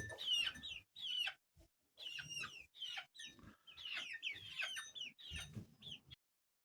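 Chickens calling: many short high cheeps and clucks in quick succession, cutting off suddenly near the end.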